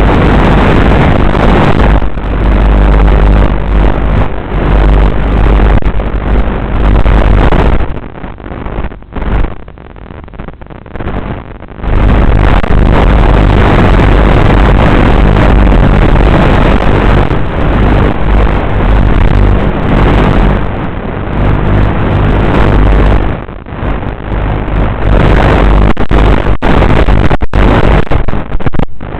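FPV quadcopter in flight heard from its onboard camera: loud motor whir mixed with rushing wind on the microphone. It drops away for about four seconds about eight seconds in, and dips briefly a few times near the end.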